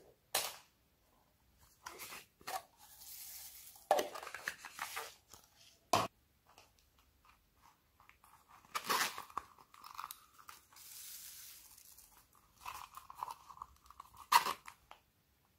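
A clear plastic pineapple-shaped container of foam beads being handled and opened: plastic crinkling and crackling, broken by several sharp clicks and snaps, the loudest near the end.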